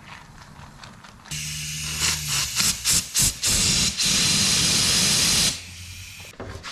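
Compressed-air blowgun blowing through a washing machine's pressure-switch hose to clear out the lint that clogged it, which stopped the switch from shutting off the fill. The air comes on about a second in, in several short bursts, then a steady blast of about a second and a half that cuts off.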